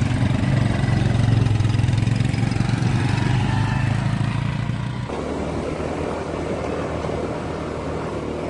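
Small motorbike engines running as riders set off. About five seconds in the sound cuts to a quieter, steadier engine hum with road noise, heard while riding along behind them.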